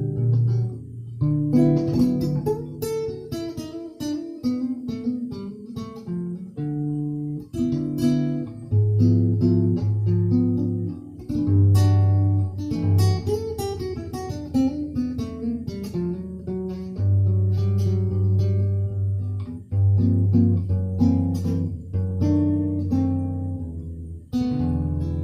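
Guitar music: plucked and strummed notes over sustained low bass notes, playing continuously.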